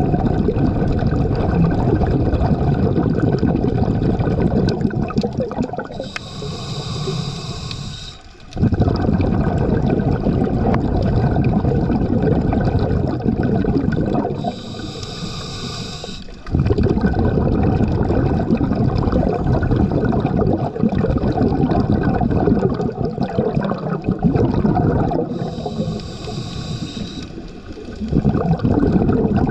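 Scuba diver breathing through a regulator underwater, close to the camera. Long exhalations send out rumbling, bubbling noise. Three times, a short hissing inhalation of about two seconds breaks in.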